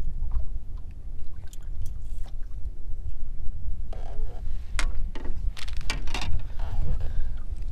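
Low, steady rumble of wind and choppy water around a small fishing boat, with a few short clicks and knocks from handling tackle in the boat, mostly in the second half.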